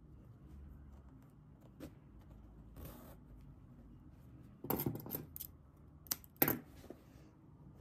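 Small scissors snipping wool yarn at a hand-sewn rug edge: a quick cluster of sharp snips in the second half and two more single snips shortly after, with faint rustling of yarn before them.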